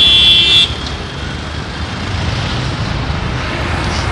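A vehicle horn held in one long high-pitched blast that cuts off less than a second in, followed by the steady rumble of passing road traffic.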